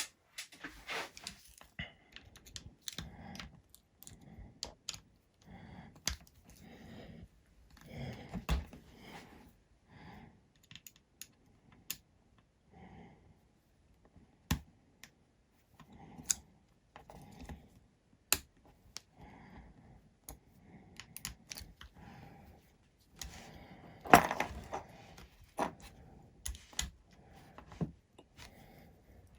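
Irregular small clicks, taps and rustles of hand tools and fingers working the screws out of a hexacopter arm, with a louder cluster of knocks about 24 seconds in.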